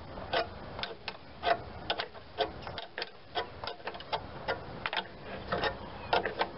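Metal turnbuckle being twisted by hand, clicking about twice a second as it is tightened. It is drawing a wrench on the serpentine-belt tensioner nut to take the tension off the belt.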